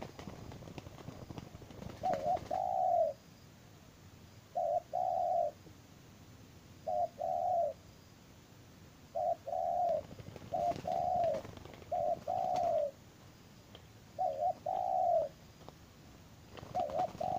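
Spotted dove cooing repeatedly, each call a short note followed by a longer, rolling coo, about eight calls spaced a second or two apart.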